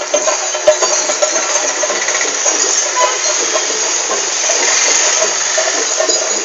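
Steady hissing roadside noise, with a vehicle engine running and indistinct voices.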